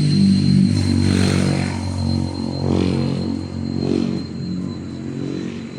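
A motor vehicle engine running, its pitch shifting up and down, with a steady high-pitched tone throughout.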